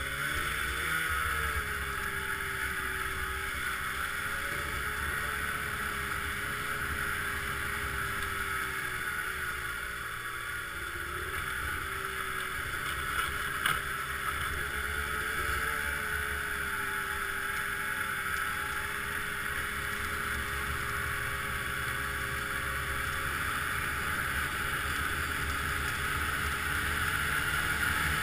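Snowmobile engine running steadily while riding over snow, its pitch wavering slightly with the throttle over a constant rushing noise. A single short knock about halfway through.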